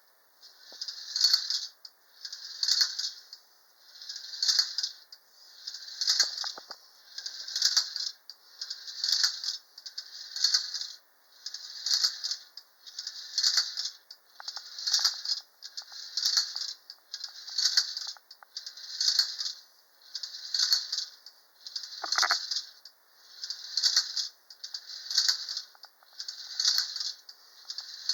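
1930 Unique Art Capitol Hill Racer, a tin-litho clockwork wind-up toy, running after being wound: a tinny metallic rattle that swells and fades in even bursts about once every second and a half, with one sharper click about 22 seconds in.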